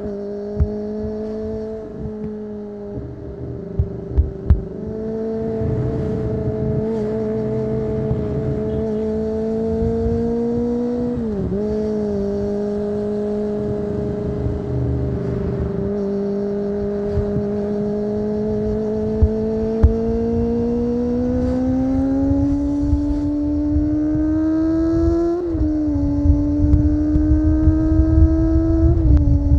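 Kawasaki ZX-25R 250 cc inline-four with an aftermarket Akrapovic exhaust, running at steady high revs. It dips briefly in pitch about eleven seconds in, then climbs slowly through the second half, with another short dip about twenty-five seconds in and an easing off at the very end. There is a light low rumble of wind underneath.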